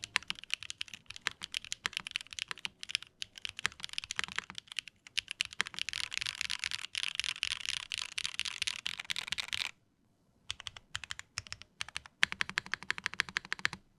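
Typing on a Machina Overture 2 mechanical keyboard: a fast, continuous clatter of keystrokes that stops briefly a little under ten seconds in, then resumes.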